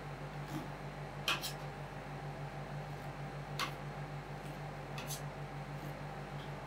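Metal spatulas clicking and scraping on the steel cold plate of an ice cream roll station, three short sharp strikes spread through, over a steady low hum.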